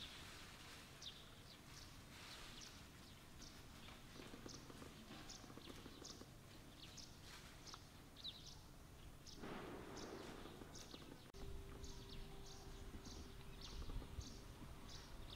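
Faint outdoor ambience of small birds chirping repeatedly in the background, with a brief rustle about two-thirds of the way through. Near the end the sound changes abruptly to a low rumble with a faint steady hum under the chirps.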